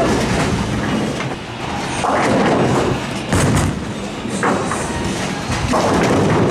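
Bowling ball rolling down the lane and crashing into the pins about six seconds in, leaving several standing. Around it runs the steady noise of a busy bowling alley, with thuds and pin crashes from other lanes.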